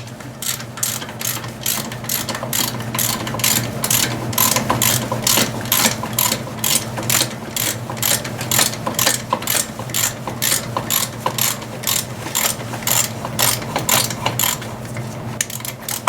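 Hand ratchet wrench clicking steadily as a bolt is backed out, about three clicks a second.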